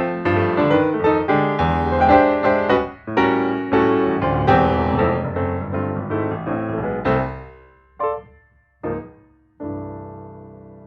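Background piano music. It slows to a couple of separate notes and ends on a chord that rings out and fades.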